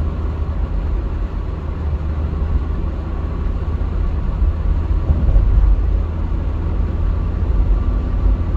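Steady in-cabin road noise of a car cruising at expressway speed: a deep rumble of tyres and engine heard from inside the car.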